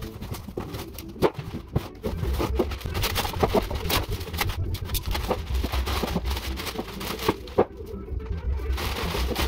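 Clear plastic wrapping rustling and crinkling, with scattered knocks, as a wooden chair is lifted out of its cardboard box and unwrapped.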